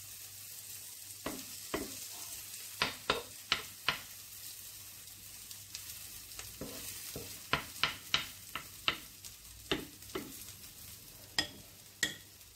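Veggie burger patties sizzling steadily in a little oil in a frying pan. Over the sizzle come runs of sharp clicks and taps as a spoon scoops mixture from a glass bowl and shapes new patties in the pan.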